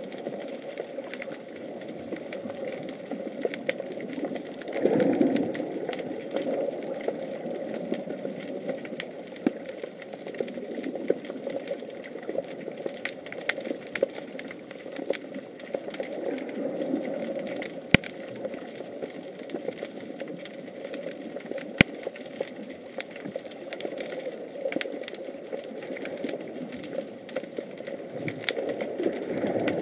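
Underwater sound picked up by an action camera in its waterproof housing: a steady muffled rumble with a faint hum, scattered sharp clicks and two louder clicks, and a louder rush of noise about five seconds in and again near the end.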